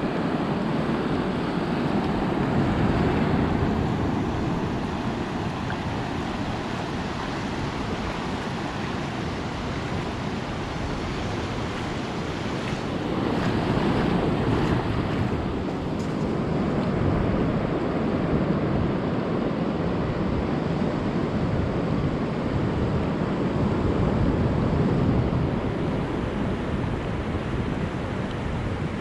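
Ocean surf breaking and washing up the beach, a continuous roar of waves that swells and eases every several seconds, with wind rumbling on the microphone.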